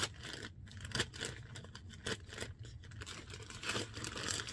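Plastic garment bag crinkling and rustling as hands open it, with scattered sharp crackles.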